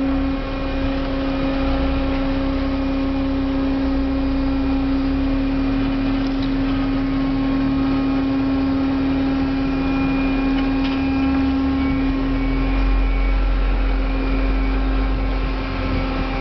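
Waste compactor's motor and hydraulic pump running with a steady hum, one strong constant tone over fainter overtones, while it compacts wet paper-pulp waste. A deeper rumble grows about twelve seconds in.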